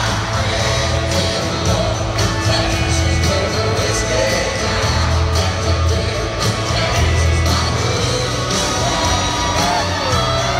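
Live country band playing in an arena, with the crowd singing along loudly and whooping over the music.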